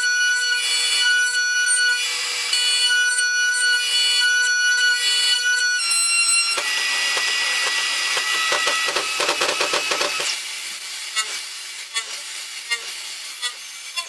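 CNC machine machining metal: a high whine that breaks off and resumes several times, changing pitch about six seconds in. A rapid chattering stretch follows, then quieter running with scattered clicks after about ten seconds.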